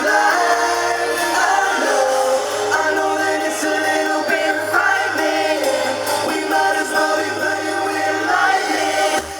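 Pop music with sustained, layered singing or synth chords and no clear lyrics.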